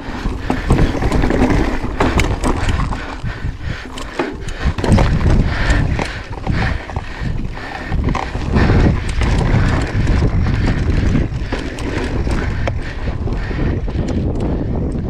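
Mountain bike riding over sandstone slickrock: a steady low rumble from the tyres, with frequent knocks and clicks as the bike rattles over the bumpy rock.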